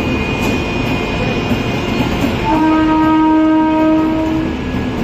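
Passenger train pulling out of a station, its coaches rolling past with a steady rumble. Partway through, a train horn sounds once, held for about two seconds.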